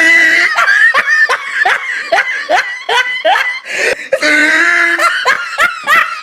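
A person laughing hard, a quick run of high-pitched laughs about three a second, with a longer held squeal partway through.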